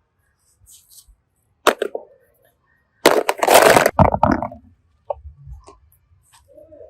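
Crackling and snapping from craft materials being handled during slime making. There is a sharp snap, then about a second later a louder stretch of crackling that lasts about a second, and a few light clicks near the end.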